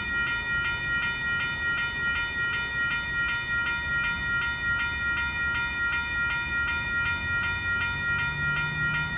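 Railroad grade-crossing bell dinging in a quick, steady rhythm over the low rumble of freight hopper cars rolling past. Sharp clicks of wheels over the rail joints join from about halfway through.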